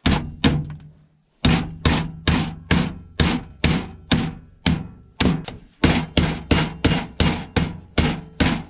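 Hammer repeatedly striking an electric toothbrush's sealed, waterproof plastic casing to crack it open: two blows, a short pause, then a steady run of about twenty sharp blows, two to three a second.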